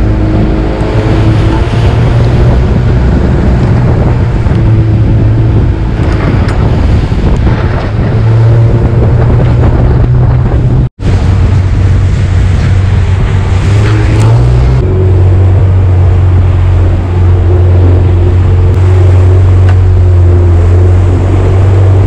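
Jet boat engine running hard under way, its steady drone over rushing water and wind on the microphone. The sound cuts out for an instant about halfway, and the engine note shifts to a new steady pitch a few seconds later.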